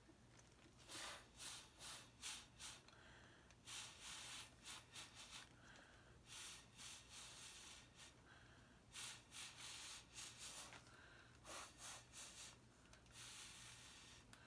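Short puffs of breath blown through a straw onto wet pour paint, coming in quick clusters of several puffs with brief pauses between, to feather the paint's edges into wispy strands.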